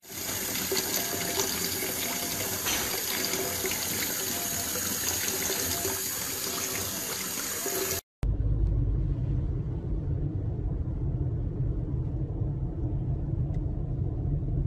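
Water running from a tap into a bathtub, a steady hiss. About eight seconds in it cuts off to a car's low road rumble heard from inside the cabin.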